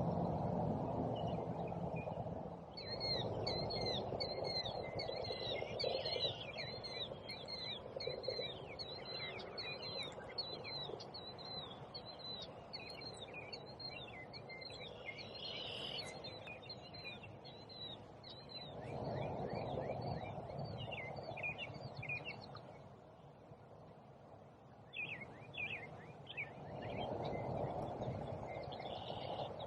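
Woodland songbirds chirping and singing, with many quick repeated notes over a low rushing noise that swells and fades several times.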